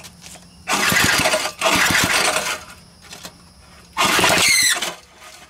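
Recoil starter of an old Briggs & Stratton small engine pulled three times, each pull a rough whir of about a second as the engine turns over without catching; the third pull carries a rising whine. The noise comes from the recoil starter, which the owner calls not a big deal.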